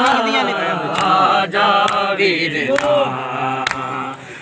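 Male voices chanting a Punjabi noha lament, with a regular rhythm of sharp slaps from mourners' matam (chest-beating) keeping time.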